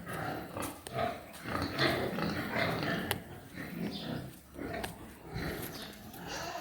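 Yorkshire pigs grunting, a series of short rough grunts one after another.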